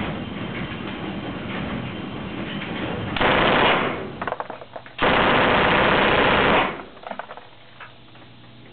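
Thompson submachine gun in .45 ACP firing full auto on an indoor range in two bursts: a short one about three seconds in, then a longer one of about a second and a half starting about five seconds in. The shots are loud enough to overload the recording.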